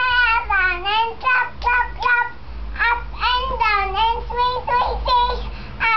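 A young girl singing a nursery action song, her high voice moving up and down in pitch from syllable to syllable.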